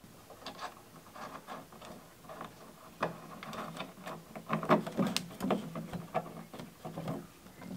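Hands handling and pressing on a hollow plastic fuel tank: irregular taps, knocks and creaks of the plastic, with the sharpest knocks about three and five seconds in.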